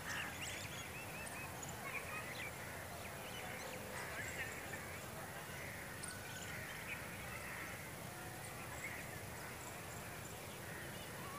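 Faint open-air ambience with scattered short bird calls and chirps coming and going over a low steady background hum.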